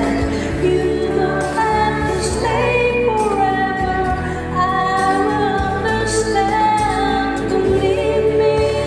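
A woman singing over a karaoke backing track, holding long notes with a wavering pitch.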